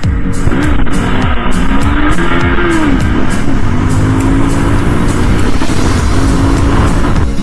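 Honda CBR250R single-cylinder motorcycle engine running while riding at road speed, its pitch rising and falling in the first few seconds, with wind rushing over the microphone. Background music with a steady beat plays over it.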